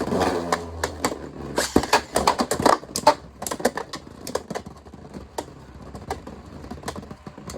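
Beyblade spinning tops, the 3D printed Agèma Ares and Dran Sword, clashing and clattering in a plastic battle stadium: a rapid run of sharp plastic clicks and knocks, thick in the first three seconds and thinning out after.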